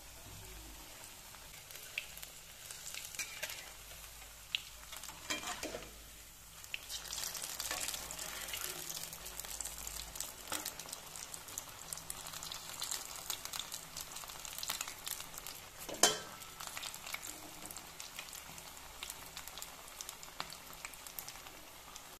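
Cabbage and potato pakodas deep-frying in hot oil in a wok, bubbling and crackling steadily. A single sharp knock rings out about sixteen seconds in.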